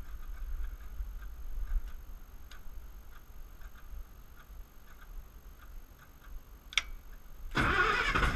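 Faint scattered clicks and taps of hands at a generator's control panel, with one sharper click shortly before the end. Near the end the MEP-005A generator's diesel engine suddenly cranks and starts, loud and rising in pitch.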